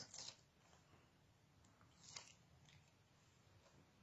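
Near silence, with a faint short rustle of paper about two seconds in as a small piece of cardstock is handled.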